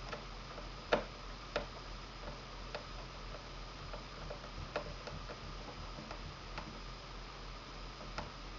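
Small screwdriver driving a screw into a laptop screen's hinge frame: irregular light clicks and ticks, the loudest about a second in.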